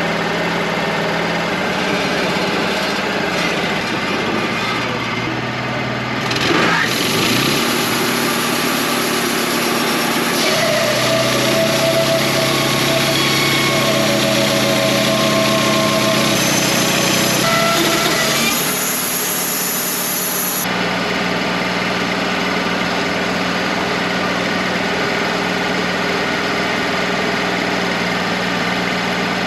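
Wood-Mizer LT35 portable sawmill's engine running steadily. From about seven seconds in to about twenty seconds in, a louder stretch of mechanical working noise, with a hiss and some steady whining tones, rides over it before dropping back to the engine alone.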